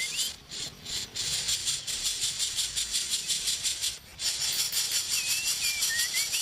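A dense, rapidly pulsing insect chorus, the buzz of cicadas, dropping out briefly twice. Near the end a bird gives a short phrase of gliding chirps.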